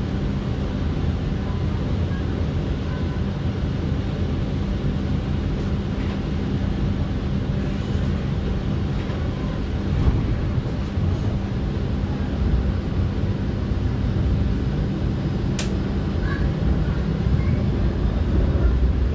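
TTC Flexity Outlook streetcar running along the track, heard from inside the car: a steady low rumble with a constant electric hum, and one sharp click about fifteen seconds in.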